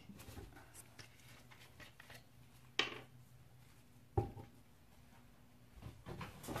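Handling noises as a plastic-capped oil bottle is opened and handled over a plastic pitcher on a scale: a sharp click a little before the middle, a knock about a second later, and a few lighter knocks near the end, over a faint steady low hum.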